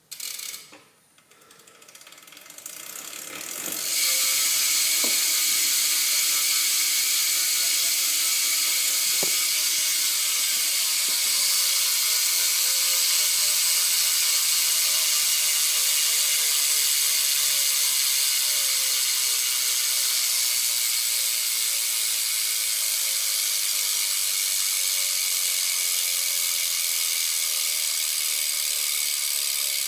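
Profile Mini BMX rear hub freewheeling: the wheel is spun up over the first few seconds, then the hub's ratchet pawls buzz loudly and steadily as it coasts, slowly winding down.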